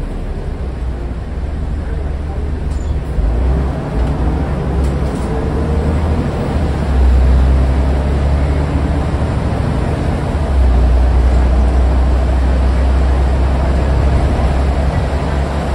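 Scania N94UD double-decker bus under way, heard from inside the upper deck: diesel engine and road noise making a steady low drone. It grows louder about seven seconds in and again near eleven seconds.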